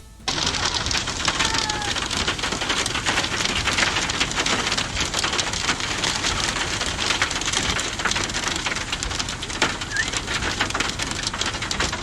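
Heavy rain pattering steadily on a hard surface, a dense crackle of countless drop impacts. A faint short chirp comes through about a second and a half in, and another near ten seconds.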